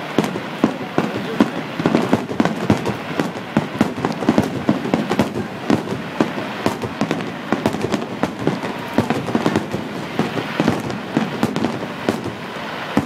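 Aerial fireworks in a finale barrage: shells launching and bursting in quick succession, a dense run of bangs and crackles many times a second with no pause.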